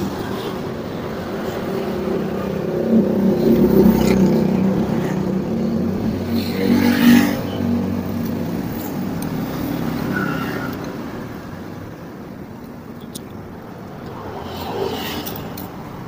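A motor vehicle passing on the road: a low engine hum that builds over the first few seconds, is loudest around four to seven seconds in, and fades away by about twelve seconds in.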